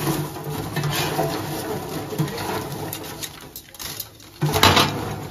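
Hot oil sizzling in a deep fryer as wheel-shaped flour snacks fry, with metal tongs scraping and clinking against the steel pan. A louder rush of sizzle comes near the end.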